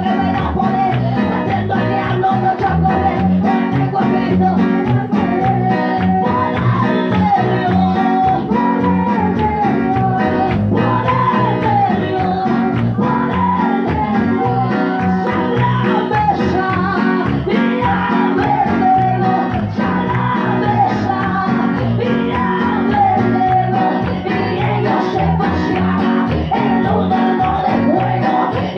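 Live worship chorus: a woman singing a lively melody into a microphone over an amplified church band with a steady beat, played loud through the PA.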